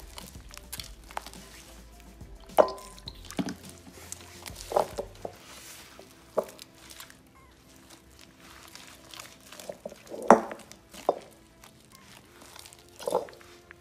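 Soft background music, with sharp wet squelches and pops of clear glue-and-borax slime being squeezed and stretched by hand, about seven of them, spread unevenly.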